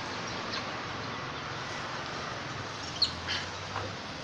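A few short, high animal calls, three or four in quick succession about three seconds in, over a steady background hum and hiss.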